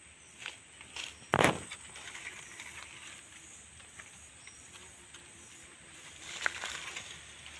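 A single loud, brief thump about one and a half seconds in, with scattered light clicks and rustling around it.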